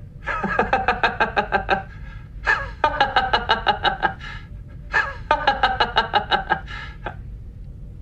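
A man's stiff, mechanically even laughter: three bursts of rapid 'ha-ha-ha', each about a second and a half long, with short pauses between.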